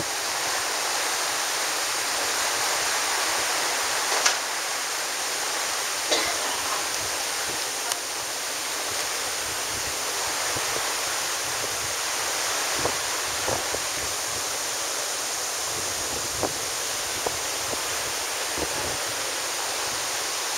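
Steady rushing noise of wind and water passing a ship under way, with a few short clicks now and then.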